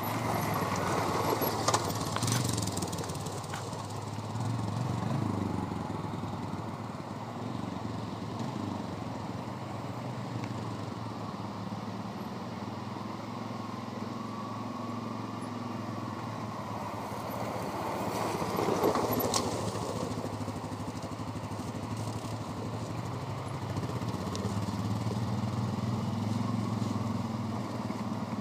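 ATV engine running as it is ridden, its pitch rising and falling with the throttle, with a louder surge of noise about nineteen seconds in.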